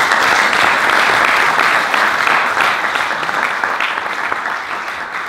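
Audience applauding: a dense spell of clapping that gradually tapers off near the end.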